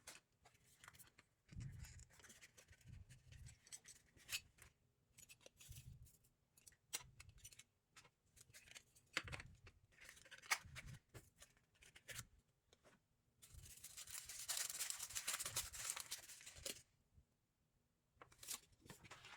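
Quiet unboxing handling: small clicks and rustles of plastic packaging and parts, with a longer stretch of crinkling or tearing about two-thirds of the way through.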